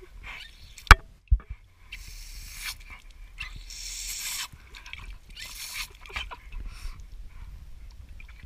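A German Shepherd snaps and laps at a jet of water, with splashing hisses in several spells. A sharp knock and a thud come about a second in, the loudest sounds.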